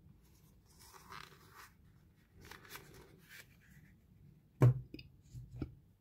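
Plastic lighter packaging handled: light rustling and scraping as a Zippo lighter is slid out of its display box and insert, then a sharp knock and two softer knocks as the box pieces are set down on a table.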